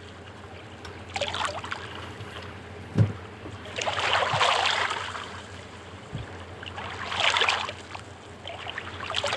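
A utensil stirring and scraping mashed black beans in a non-stick Teflon pan as they thicken over a small burner: several uneven scraping strokes of a second or so each, with one short knock about three seconds in.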